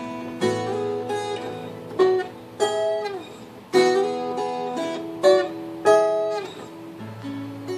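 Acoustic guitar playing an instrumental passage, with chords struck sharply every second or so and some notes bent down in pitch.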